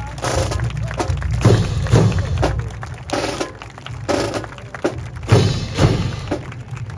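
Drums beating time for a military fancy drill, a run of heavy, unevenly spaced strikes.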